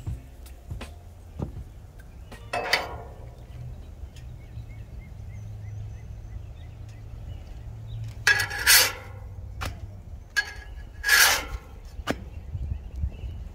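A metal spatula scrapes across the steel top of a Blackstone griddle in three short strokes, about 3, 8 and 11 seconds in, the last as it slides under a pancake to flip it. A steady low rumble runs underneath.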